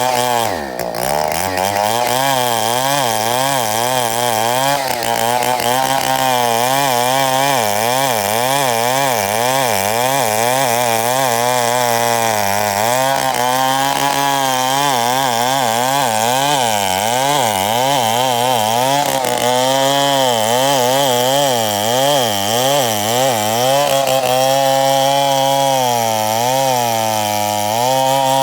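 Chainsaw running under load while cutting through Oda wood. Its engine pitch wavers up and down about once a second as the cut goes on.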